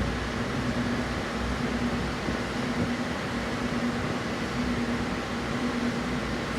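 Electric fan running: a steady whir with a low hum that comes and goes about once a second.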